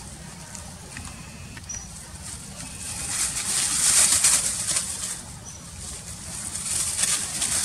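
Dry leaf litter rustling and crackling as long-tailed macaques scramble over it close to the microphone, loudest about halfway through and swelling again near the end.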